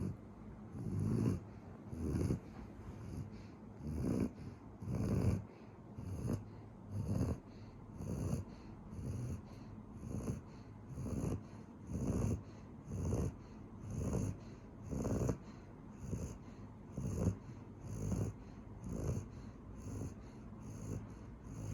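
A German Shepherd dog snoring in its sleep, a steady rhythm of wheezy, snorting breaths about one a second.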